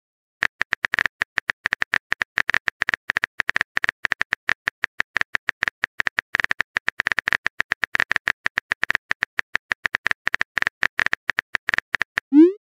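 Keyboard-typing sound effect of a chat app: a fast, irregular run of short, sharp clicks while a message is being typed. It ends with a short rising swoop as the message is sent.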